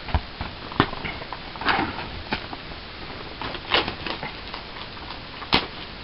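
Pokémon trading card collection box being opened and handled: scattered rustles of packaging and a few sharp clicks over a steady hiss.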